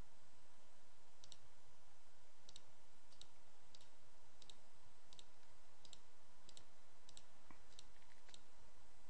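Computer mouse button clicking about once every half second to second, each click placing the next control point of a curve being drawn, over a steady faint hiss.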